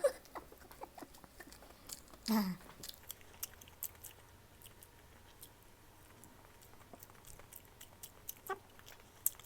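A person chewing food close to the microphone, with soft, irregular wet mouth clicks and smacks. A short hum of the voice comes about two seconds in.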